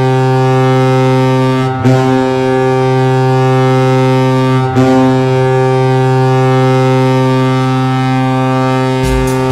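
Colorado Avalanche hockey goal horn blowing a loud, deep, steady blast that breaks off briefly and restarts about two seconds in and again about five seconds in. Near the end, music with a heavy beat starts under the horn.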